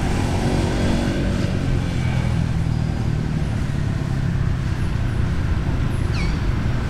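Steady low rumble of an engine running, with a brief high falling chirp about six seconds in.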